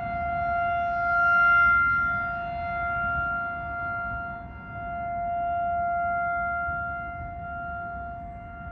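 Outdoor warning siren sounding a steady tone for a tornado warning, swelling and fading in loudness every few seconds.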